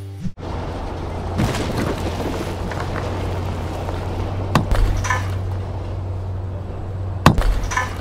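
Demolition sound effects of a wall being smashed: rubble crumbling and clattering over a steady low hum, with two heavy crashes, one about halfway through and one near the end.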